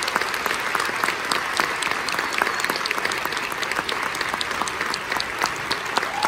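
Audience applauding steadily after a concert band performance, a dense, unbroken clatter of clapping hands.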